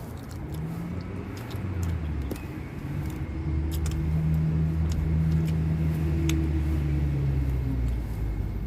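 A motor vehicle's engine running close by: a low hum that swells about three seconds in and eases off near the end, with a few light clicks over it.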